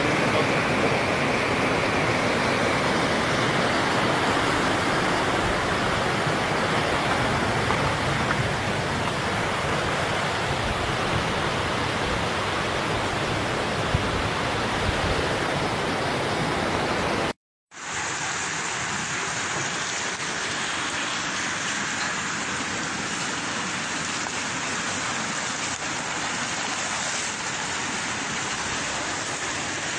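Heavy rain pouring down, a steady hiss of water with no letup. It is broken once, a little past halfway, by a split second of silence.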